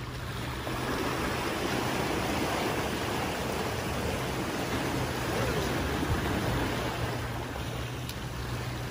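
Sea waves washing against shoreline rocks, a steady rush of water noise.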